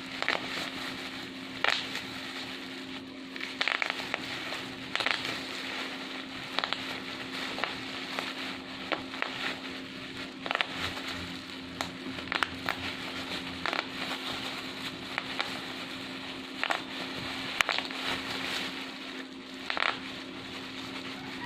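Bubble wrap being crumpled and squeezed: a continuous plastic crackle with a sharp single pop every second or two, over a faint steady low hum.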